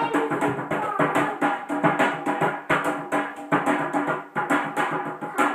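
Home jam-session music: a steady drumbeat of about two strikes a second, played by hand on an improvised drum, over a held pitched note.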